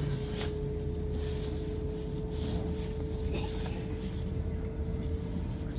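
Passenger train interior while running: a steady low rumble with a single steady hum tone held throughout, and a few faint ticks.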